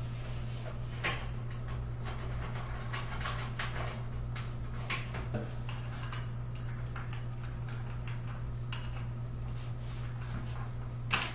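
Small clicks, taps and knocks of day bed brackets and frame parts being handled and fitted, with a sharper knock near the end, over a steady low hum.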